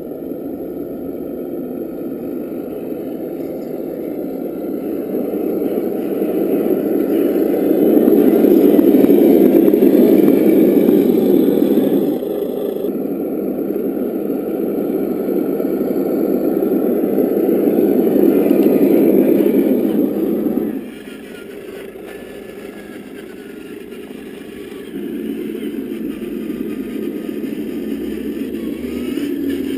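Simulated Unimog diesel engine sound from the RC truck's EssOne sound module, played through its small onboard speaker as the model crawls. It swells and eases with the throttle and drops off abruptly about 12 and again about 21 seconds in.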